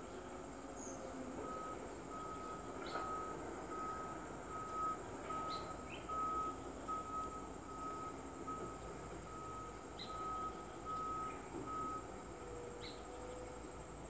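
A vehicle's reversing alarm beeps steadily at one pitch, about twice a second, for roughly ten seconds, then stops near the end. A few faint short bird chirps sound over it.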